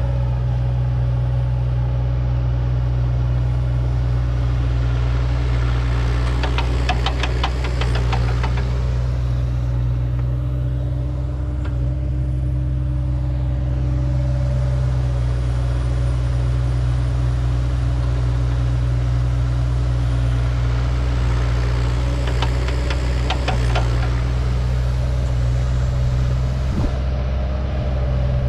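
Diesel engine of a piece of heavy construction equipment running steadily with a deep, even hum. There are two short spells of rapid clattering, about seven seconds in and again about twenty-three seconds in.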